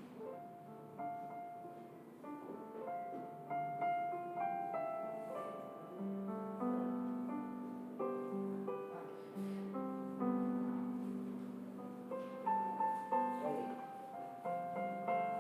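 Soft solo piano background music: slow single notes and chords, each struck and left to ring and fade.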